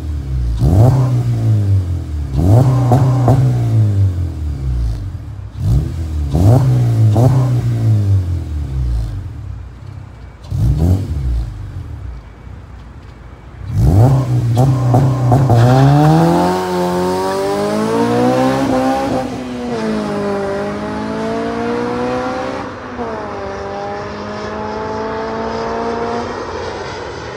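Exhaust of a 2009 Honda Civic Si's K20Z3 four-cylinder, fitted with a Rev9 full exhaust, test pipe and Skunk2 headers. First it is revved in place in a series of short throttle blips. About halfway through it pulls away, rising in pitch through the gears with shifts near the end, and fades as it drives off.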